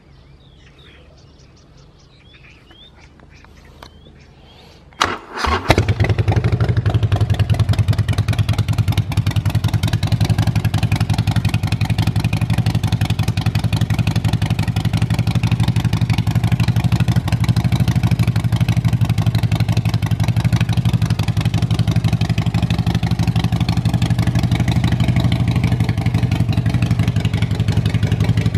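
Custom Harley-Davidson Forty-Eight's 1200 cc V-twin started with the electric starter about five seconds in, catching at once and then idling steadily with a lumpy, pulsing beat through its handmade exhaust.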